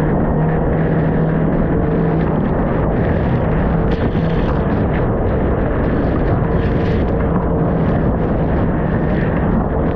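Outboard motor on a Stabicraft 15.5 aluminium boat running steadily under way, its drone nearly buried in loud rushing wind and water noise from rough chop.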